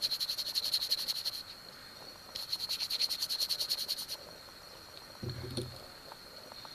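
A high-pitched trilling animal call, rapid even pulses over a steady high tone, heard in two bursts of a second and a half to two seconds. A short low hum, like a brief voice, comes about five seconds in.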